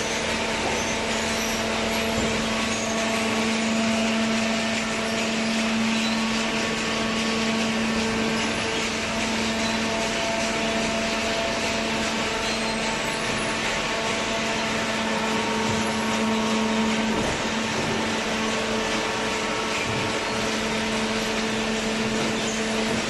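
Machinery running steadily, a constant hum with a few fixed-pitch tones over a wash of mechanical noise.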